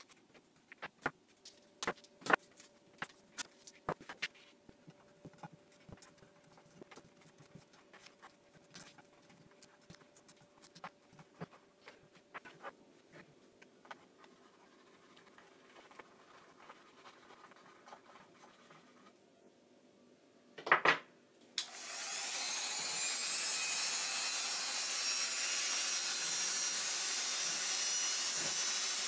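Light clicks and handling noises as a loudspeaker woofer is worked on by hand. About 21 s in, a sharp double click, then a handheld rotary tool (Dremel-type) starts and runs steadily with a high-pitched whine, grinding excess old rubber surround off the woofer's cone.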